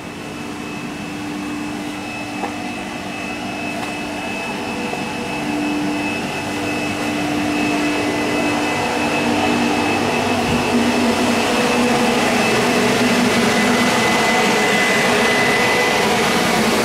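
Circular knitting machines running: a steady mechanical hum with a few thin, high whining tones, growing gradually louder.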